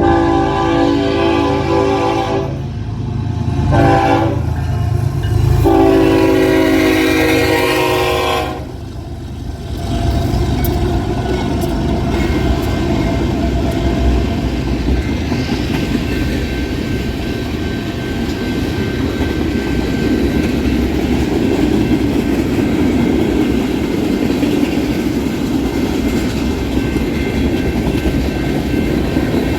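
Locomotive air horn sounding a chord: a long blast, a short one and another long blast. Then the train passes with a steady rumble and wheels clicking over the rail joints.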